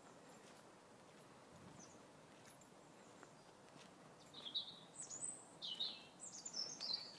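A bird calling: quiet woodland background, then from a little past halfway several short high chirps and a quick falling run of notes near the end.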